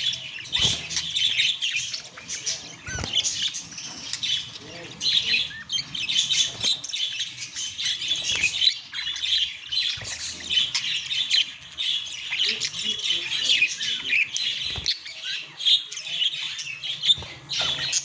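Male budgerigar warbling and chattering without a break: a busy stream of chirps, squawks and fluttering, speech-like notes. A few short taps come through now and then.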